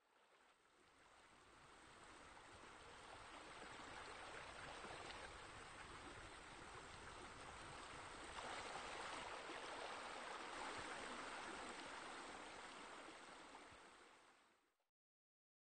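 Faint, steady sound of flowing water, like a stream or a pool spillover. It fades in over the first few seconds and fades out about a second before the end.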